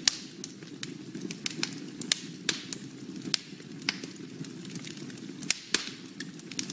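Log fire crackling in a fireplace: irregular sharp pops and snaps over a soft steady hiss.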